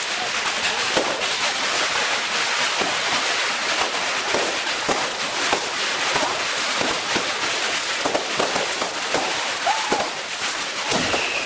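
Aerial fireworks going off in a dense, continuous barrage of crackles and bangs.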